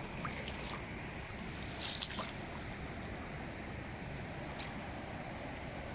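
Shallow stream water running in a steady wash, with a few faint splashes about two seconds in.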